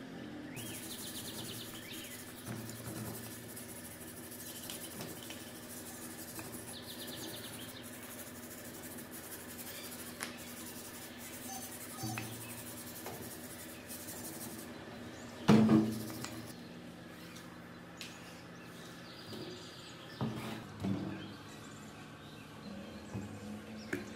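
A rusty electric water pump and hand tools handled on a worktable: one loud metal knock about two-thirds of the way through, then a few lighter knocks near the end, over a faint steady hum with occasional faint chirps.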